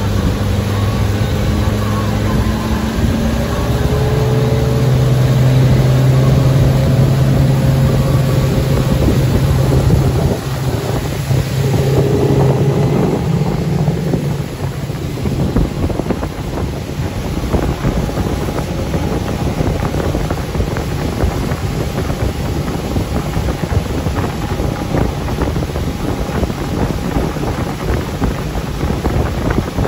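Motorboat engine running steadily under way, with wind buffeting the microphone and water rushing past the hull. The engine's low hum is strongest in the first part, then fades under the wind and water noise from about halfway.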